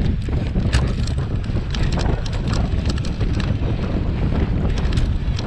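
Wind buffeting the microphone of a camera on a bicycle ridden fast over a dirt cyclocross course, with a steady low rumble and scattered sharp clicks and rattles from the bike over the rough ground.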